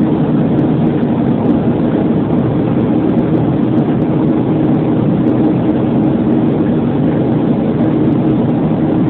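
Steady roar of a Boeing 737's wing-mounted jet engines and rushing air, heard inside the passenger cabin in flight, with a constant low hum under it.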